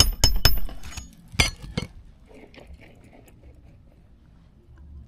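Roofing nail gun driving nails into shingles: about five sharp shots with a metallic ring, all in the first two seconds, then a few faint knocks.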